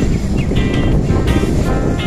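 Background music with short, repeated melodic notes over a loud low rumble of wind buffeting the microphone while riding.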